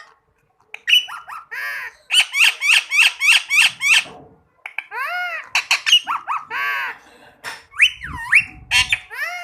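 Indian ringneck parakeet calling: a string of loud, high, arching notes, including a quick run of about four a second, with a long call gliding down in pitch near the end.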